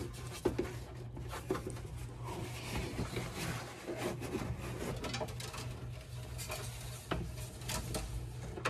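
Hands rubbing and knocking lightly against the plastic wheel-well liner and frame while feeding an air-spring hose through, with scattered small clicks, over a steady low hum.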